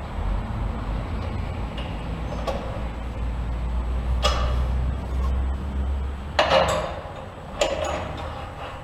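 A handful of scattered knocks and clinks, metal parts bumping as a motorcycle front wheel is lifted and lined up between the forks for the axle; the loudest is a quick double knock past the middle, over a steady low rumble.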